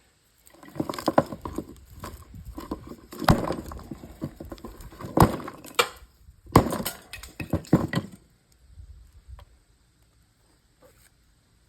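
Rattling, knocking and cracking of plastic and metal parts as an old television is pulled apart by hand, with three sharp hard knocks among the clatter. It stops about eight seconds in, leaving only faint small clicks.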